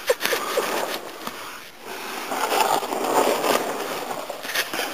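Close rustling and scraping with irregular scuffs and crackles, the sound of someone moving with a handheld camera rubbing against the microphone.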